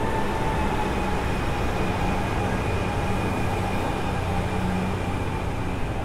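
Motorboat engine running steadily as the boat passes on the river: a continuous drone with a steady whine over it.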